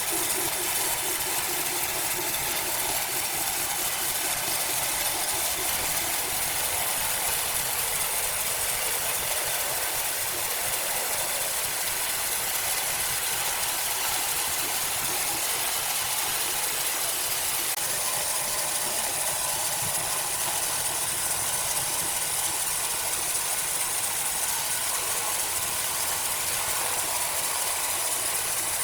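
Machinery running steadily, a constant hissing noise with no breaks.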